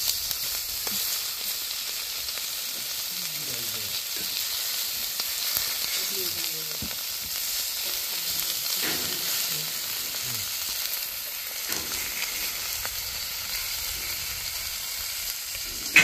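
Pork belly strips sizzling on a hot flat steel griddle: a steady frying hiss.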